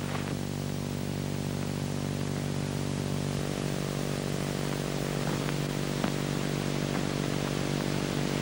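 Steady hiss with a low electrical hum: the background noise of an old film soundtrack, with a faint click about six seconds in.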